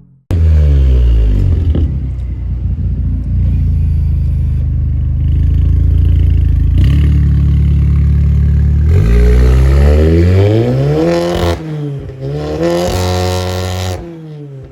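Audi S3's turbocharged four-cylinder engine revving hard, its pitch climbing and dropping several times in the second half, with short rattling noises where the revs fall. The sound cuts off abruptly near the end.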